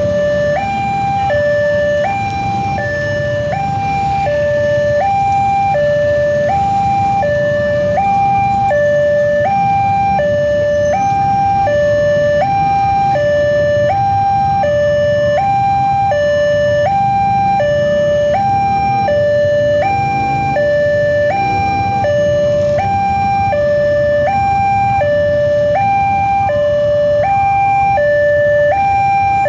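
Railway level-crossing warning alarm sounding its steady two-tone electronic signal, a high and a low note alternating about every two-thirds of a second, as the crossing's red flasher lights blink: the signal that the crossing is closing for an approaching train.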